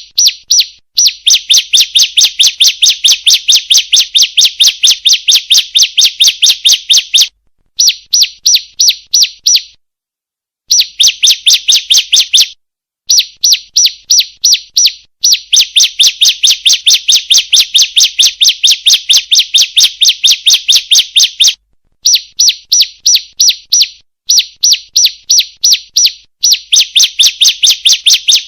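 Female bar-winged prinia (ciblek) calling: a rapid series of sharp, high chirps, about five a second, in runs of a few seconds broken by short pauses.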